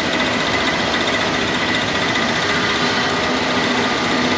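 Jet airliner engines running close by: a loud, steady rush of noise with a steady high whine held through it.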